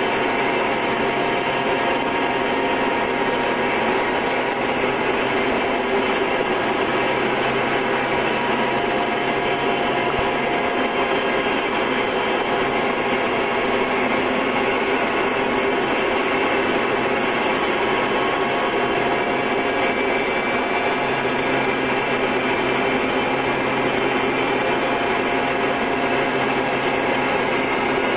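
Short Tucano's Garrett TPE331 turboprop engine and propeller droning steadily in flight: an even, dense hum with several steady tones. A lower hum drops out about a third of the way in and comes back about three-quarters of the way through.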